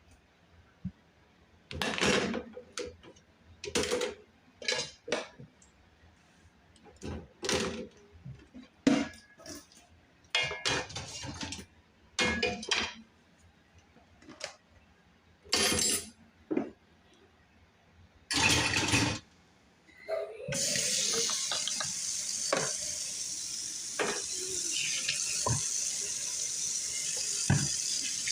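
Dishes and cutlery clattering and clinking as they are taken out and set down, one handful at a time. About two-thirds of the way through, a kitchen tap starts running steadily into the sink, with a few more clinks over it.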